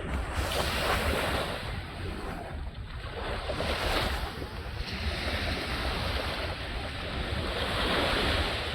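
Water rushing and gurgling in swells that build and ease every three to four seconds, with wind rumbling on the microphone.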